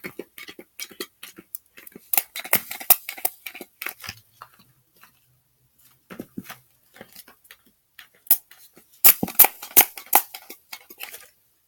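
Homemade slime being worked, giving irregular sticky clicks and crackles that come in busy runs about two seconds in and again near the end.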